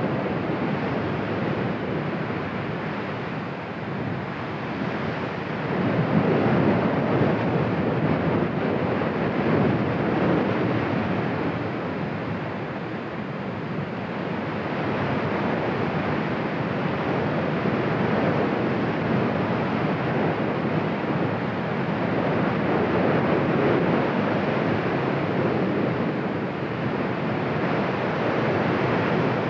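Cumbre Vieja volcano erupting: a continuous rushing noise from the vent and ash column that swells and eases every few seconds, much like surf.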